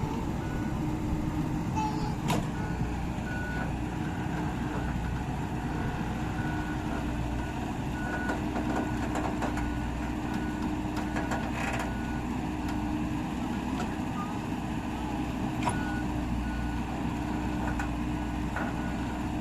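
Hydraulic excavator's diesel engine running steadily under load as the machine tries to climb out of an irrigation channel, its travel alarm giving short beeps about once a second. A few sharp clanks stand out.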